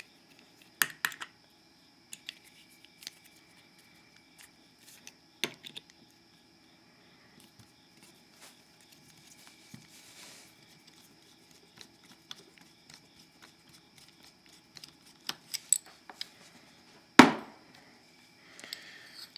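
Small metal clicks, taps and scrapes of a Mul-T-Lock C10 padlock being taken apart by hand with tools, its hardened steel parts knocking together. The clicks are scattered, thicker around a second in and again near the end, with one sharper knock shortly before the end.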